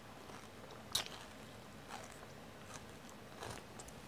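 Someone chewing a stick of celery spread with peanut butter: crisp, irregular crunches. The sharpest and loudest crunch comes about a second in.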